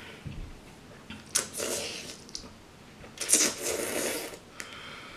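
Close-up slurping of kimchi ramen noodles, twice, each slurp lasting about a second, the second one louder.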